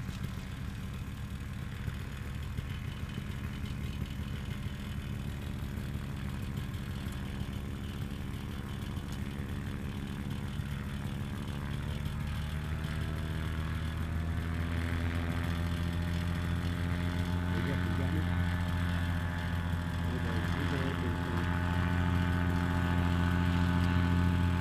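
Paramotor engine running steadily. From about halfway it slowly rises in pitch and gets louder as it revs up.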